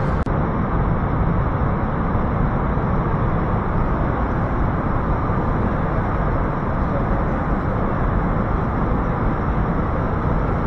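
Loud, steady hum and rush of a running hydroelectric turbine-generator unit, a dense noise weighted to the low end with no breaks or changes.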